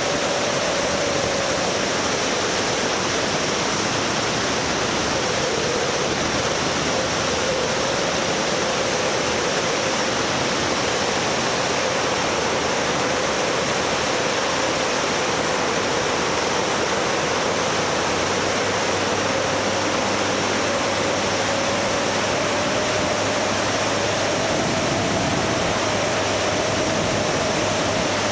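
A vehicle running steadily: a constant rushing noise with a faint whine that drifts slowly up and down in pitch.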